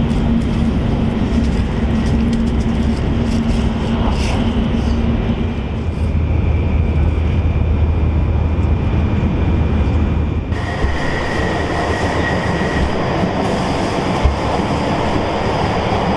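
Interior running noise of a Shinkansen bullet train at about 150 mph: a loud, steady rumble and rush. About ten seconds in the sound shifts abruptly to a brighter rush with a faint high whistle.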